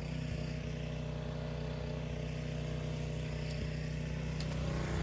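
Craftsman gas pressure washer's small engine running steadily with the spray gun off: a constant low engine drone with no water spray.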